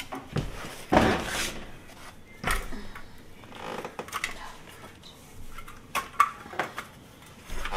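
Sheet-metal cabinet panel of a portable dishwasher being handled and fitted back on: a string of separate metal clanks, scrapes and rattles, with a longer rattle about a second in.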